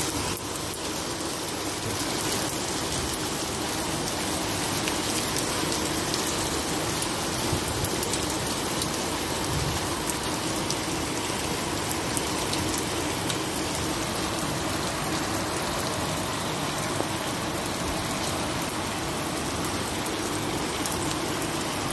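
Hailstones falling on a flat roof deck: a steady, dense clatter of many tiny ticks over a constant hiss.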